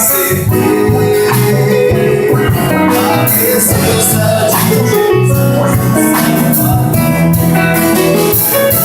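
Church praise music with a steady beat: a keyboard playing a slow hymn over drums.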